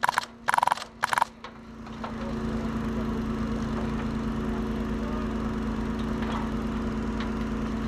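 Three short, loud, high tones in the first second and a half. About two seconds in, a vehicle engine starts running steadily, with a constant hum.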